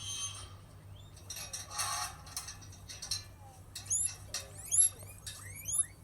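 Guinea pig squeaking: a run of short, high squeaks, each sweeping up and falling back, several in quick succession from about four seconds in. Before them, about two seconds in, comes a brief scratchy noise.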